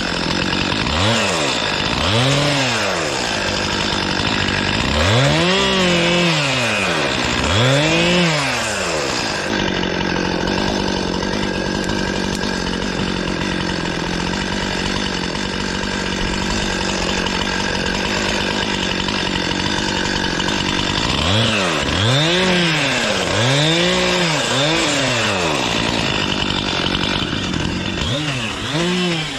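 Two-stroke chainsaw revved up and down again and again, its pitch rising and falling in quick swells. For about ten seconds in the middle it holds a steady pitch.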